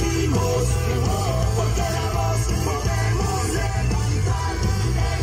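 A recorded rock protest song by a Colombian group, with yelled, chanted vocals over a steady driving beat.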